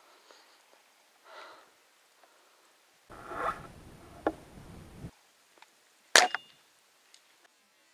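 A spring-powered airsoft sniper rifle (Tokyo Marui VSR-10) firing a single shot about six seconds in: one sharp crack with a brief metallic ring. Before it come short stretches of faint wind noise and rustling, with a small click near the middle.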